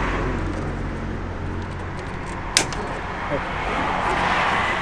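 A single sharp plastic click about halfway through as the number plate is handled against the grille plate holder, over a steady low rumble.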